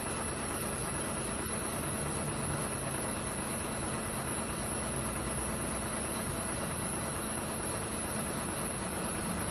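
A vehicle engine running steadily under an even hiss.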